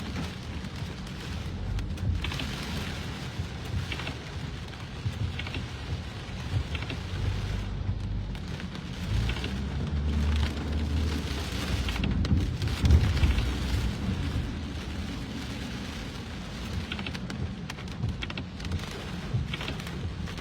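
Heavy rain pouring steadily, with scattered drops spattering on nearby surfaces. A low rumble runs underneath and swells about halfway through.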